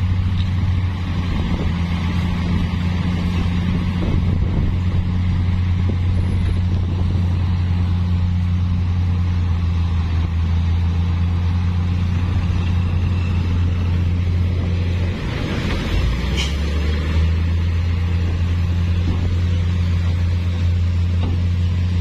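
Heavy diesel engine running steadily with a low drone. About two-thirds of the way in, its note dips briefly and shifts, then it settles again.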